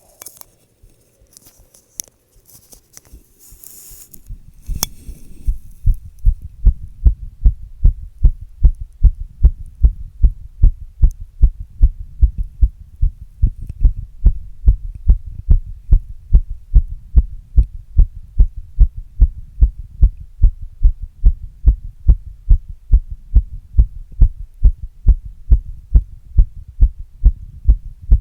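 Human heartbeat picked up by an earbud microphone set in a glass against the chest: steady, evenly spaced low thumps that fade in about four seconds in and continue regularly. Before them come a few faint scratches and clicks.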